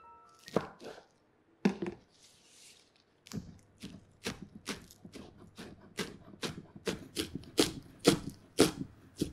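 Chef's knife chopping scallion greens on a wooden cutting board. Two separate knocks come first, then from about three seconds in a steady run of chops at two to three a second, growing louder near the end.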